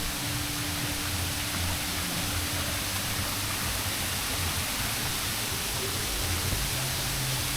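A steady rushing hiss with an uneven low rumble underneath.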